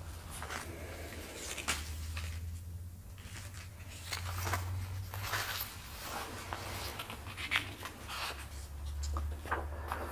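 Paper rustling as the sheets of a spiral-bound manuscript are leafed through and handled, with scattered soft shuffling as the reader gets up from an armchair, over a low steady hum.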